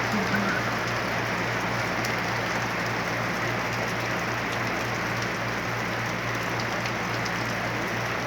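Steady rain falling, an even unbroken hiss, with a low steady hum underneath.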